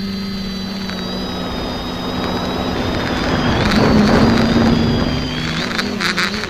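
X550 quadcopter's electric motors and propellers whining as heard from its onboard camera, the pitch shifting with throttle. A rushing wind-and-prop noise swells loudest about four seconds in, then eases.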